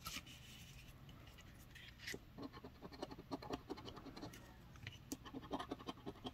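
A coin scratching the coating off a scratch-off lottery ticket: a few light scrapes at first, then from about two seconds in a steady run of quick, short back-and-forth strokes.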